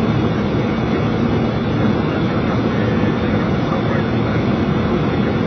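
Boeing 737 flight-deck noise on final approach: a steady rush of airflow and engine sound, heaviest in the low range.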